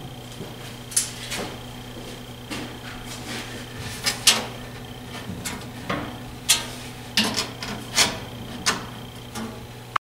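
About a dozen irregular sharp knocks and taps from hand work on a steel-framed cabinet with a wooden top, the loudest about four seconds in, over a steady low hum.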